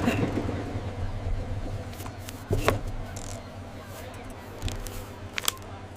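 Train sound effect: a steady low rumble of a train running that slowly fades, with a few short clicks and squeaks over it, one about halfway through and another near the end.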